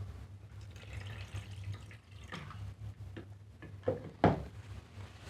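Water being poured into a tabletop fountain's basin, trickling and dripping, with two short knocks about four seconds in.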